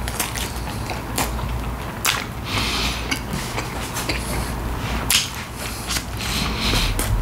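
A person eating McChicken sandwiches up close: chewing and biting sounds with a few sharp clicks spread through.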